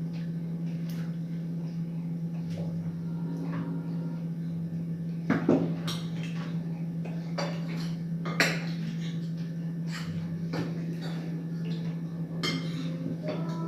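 Cutlery clinking and scraping on plates during a meal. The knocks come now and then, two of them louder about five and eight seconds in, over a steady low hum.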